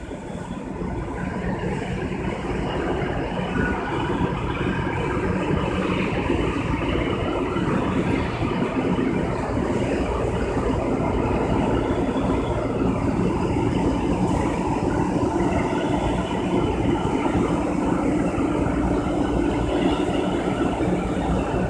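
Steady mechanical drone of industrial machinery, with a low hum running through it, swelling a little over the first few seconds.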